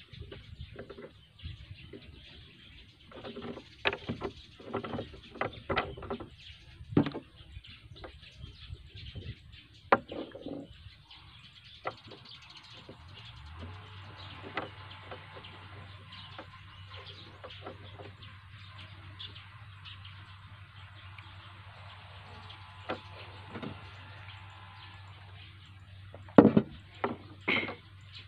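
Small plastic trigger parts being handled and fitted together on a wooden table: scattered clicks and knocks, with the loudest cluster near the end. A steady low hum comes in about halfway through.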